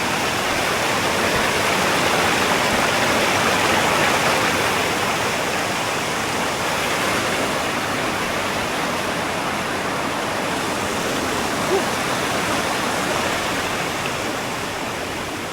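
Steady rush of falling water, a waterfall or fast mountain stream.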